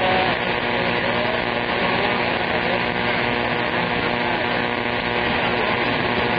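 CB radio receiver hissing with band static during long-distance skip, with steady whistle-like carrier tones and faint, garbled distant signals under the noise.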